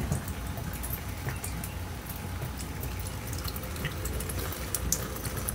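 Kitchen faucet running a stream of water into a sink: a steady splashing with scattered drips.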